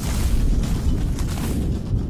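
Background music dominated by heavy, booming bass.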